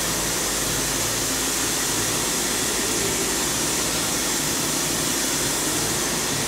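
Steady hiss with a faint low hum beneath it: the even background noise of a machine shop.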